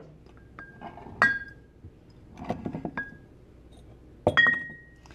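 Glass bottles clinking against each other as they are moved about on a counter: several sharp clinks, the last one about four seconds in ringing on briefly.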